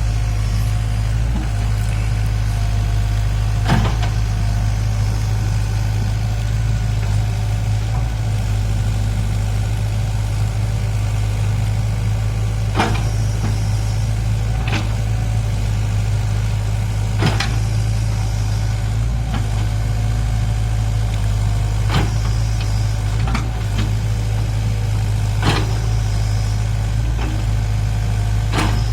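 Heavy construction machinery's diesel engine running steadily, with a sharp knock every few seconds.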